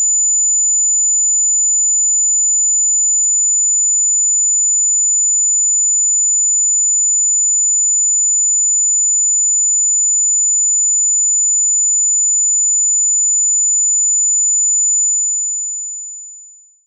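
A steady, very high-pitched electronic sine tone held at one pitch, which fades out over the last two seconds.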